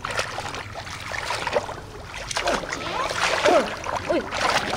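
Shallow muddy water sloshing and splashing in irregular bursts as hands grope through it for fish, louder about three seconds in.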